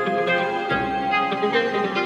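Instrumental background music with plucked string notes.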